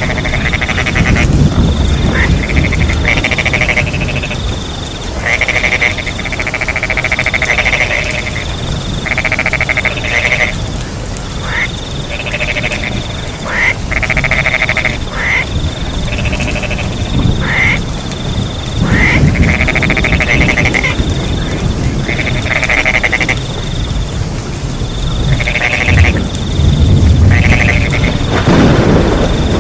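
Frogs calling in repeated croaking choruses, each about a second long, over a high steady cricket trill and the low rush of rain.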